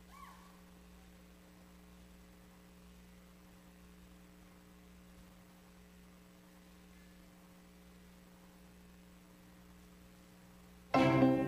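Faint steady electrical hum with no music playing. About half a second before the end, recorded music with strings starts abruptly and loudly.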